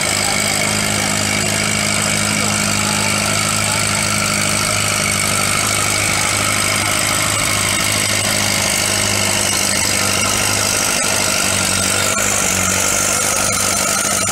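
Antique farm tractor engine running steadily under load as it pulls a weight sled.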